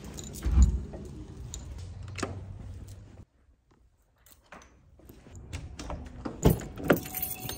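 Scattered knocks, clicks and rustling from a phone camera being carried and handled in a hurry, with a heavy thump about half a second in and more knocks near the end. The sound drops out completely for about a second in the middle.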